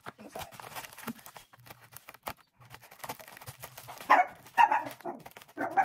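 A dog barks about three times in the second half, short loud barks, over light crackling of a padded mailer being handled.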